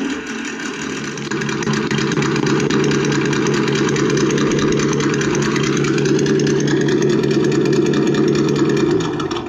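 Reely Double Boost sound simulator playing a simulated engine sound at full volume through its small speakers, which strain at this highest setting. It runs steadily, revs up about six seconds in and holds the higher pitch, then cuts off near the end.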